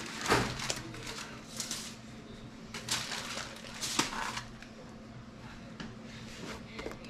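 Aluminium foil crinkling and rustling in short bursts as gloved hands fold and seal it tightly around a smoked pork butt, over a faint steady low hum.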